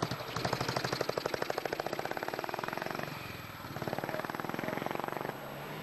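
Motorcycle-and-sidecar engine pulling away, its exhaust beating in a rapid, even pulse. The beat drops away for a moment about three seconds in, then picks up again.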